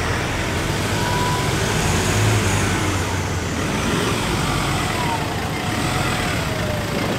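Ford Ranger 4x4 ute's diesel engine running steadily while it crawls over a rocky dirt track, with a faint tone that falls in pitch near the end.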